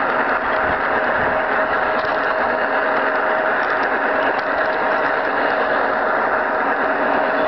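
Garden-scale model train running along its track, heard close up from on board: a steady rolling noise of wheels on rails with a steady whine over it.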